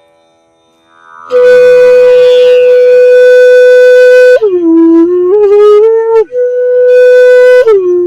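Background music: a woodwind melody entering about a second in, with a long held high note, a lower phrase stepping in pitch, the held note again, and a lower phrase near the end.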